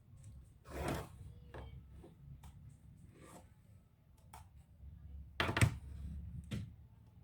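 Scattered clicks and knocks from handling laptop parts and tools during disassembly, about half a dozen, the loudest about five and a half seconds in.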